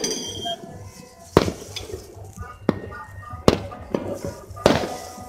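Scattered firecrackers going off across the city at New Year: a handful of single sharp bangs a second or so apart, the loudest near the end with an echo trailing after it, over faint voices and music.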